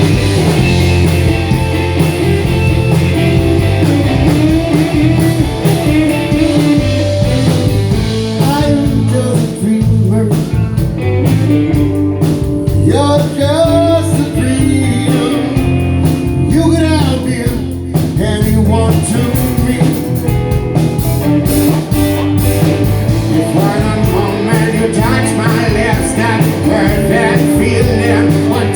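Live blues-rock band playing, with electric guitar, bass and drums keeping a steady groove. In the middle a lead part with bending, sliding pitches stands out over the band.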